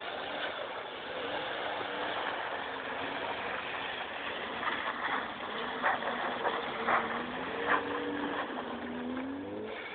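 Fiat Bravo's engine revving up and down as the car drifts past on ice, its pitch climbing near the end. A few short sharp bursts of noise come about halfway through.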